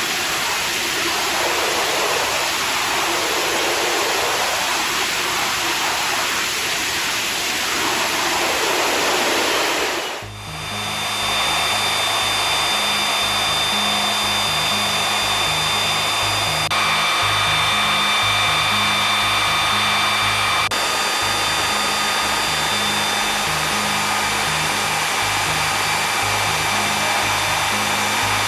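Pratt & Whitney F119 afterburning turbofan running on a test stand, in afterburner: a loud, steady roar. About ten seconds in it dips and cuts to steady engine noise with several high, steady whining tones on top.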